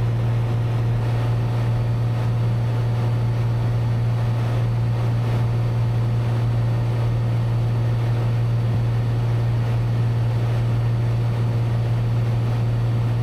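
Steady drone of a Cessna 182's piston engine and propeller in level cruise flight, heard inside the cabin: a strong low hum that holds one pitch under an even rushing noise.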